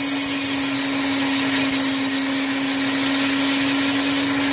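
Dremel rotary tool running at a constant speed with a steady whine, polishing a knife blade with polishing compound.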